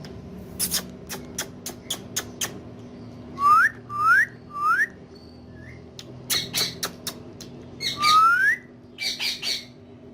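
Pet parrot calling: short harsh squawks in quick bursts, with three short rising whistles in a row around the middle and one longer rising whistle later.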